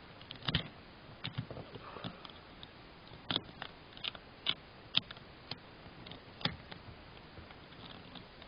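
Plastic Lego bricks clicking and clacking as they are handled and pressed together, in scattered sharp clicks.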